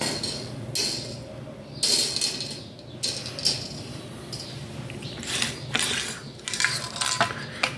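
Wire-mesh grill basket being handled on a tiled floor, its thin metal wires rattling and scraping in short bursts of clinks, with a denser run near the end.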